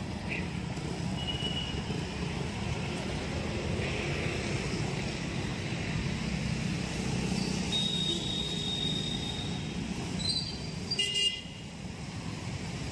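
Steady road-traffic rumble with vehicle horns tooting over it: a short high toot about a second in, a longer held tone around eight seconds in, and a short, louder honk about eleven seconds in.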